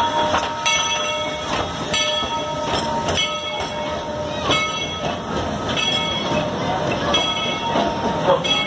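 A narrow-gauge steam train rolling slowly past, with the locomotive's bell ringing in even strokes about every two-thirds of a second.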